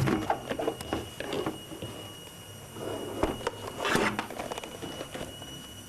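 Handling noise of a running camcorder: scattered light knocks and rustles, with a faint steady high-pitched whine underneath.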